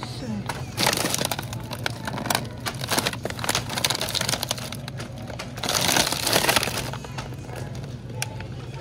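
Plastic bags of frozen dumplings crinkling and crackling as they are handled and pulled off a freezer shelf. It comes in several bursts, loudest about six seconds in, over a steady low hum.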